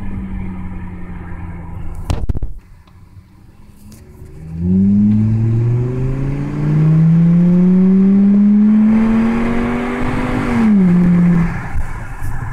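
Volkswagen Golf Mk6 2.5-litre five-cylinder through an AWE catback exhaust, heard from inside the cabin. The engine note falls off, there is a brief knock and a quieter lull for about two seconds, then the car accelerates hard with the exhaust note rising steadily for about six seconds before dropping away near the end.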